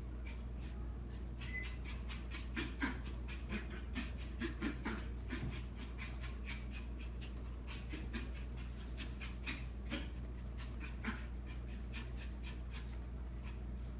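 Morkie puppy panting, with quick, irregular sharp clicks that are thickest in the first half.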